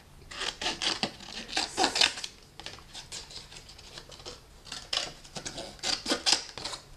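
Scissors snipping through paper in two runs of quick cuts, trimming a scrap of patterned cardstock.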